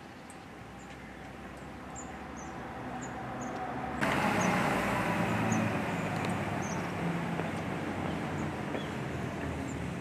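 Thin, high calls of long-tailed tits, short and repeated about once a second, over the rumble of a vehicle that grows and gets suddenly louder about four seconds in.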